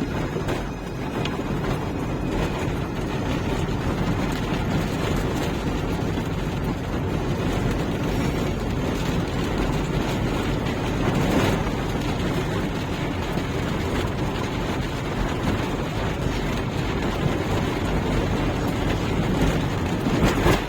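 Steady noise of a car driving in heavy rain, road and rain sound together, with a brief louder swell about halfway through.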